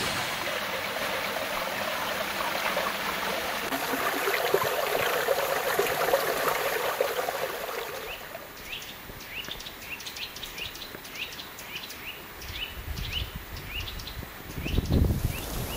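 Woodland ambience: a steady rushing like a stream, then, from about halfway, a bird repeating a short chirp about twice a second. Near the end there is a low rumble of wind on the microphone.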